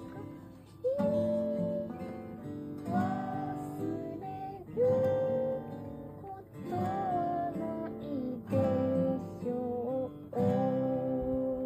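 Steel-string acoustic guitar strummed slowly, one chord about every two seconds, with a woman singing long held notes over it.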